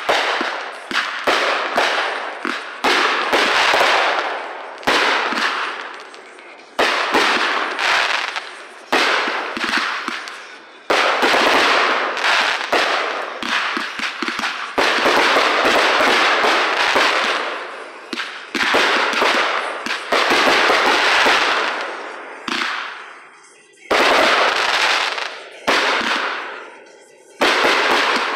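Aerial fireworks going off in a rapid string of bangs, about one to two seconds apart, each followed by a crackling tail that dies away. The bursts come more sparsely near the end.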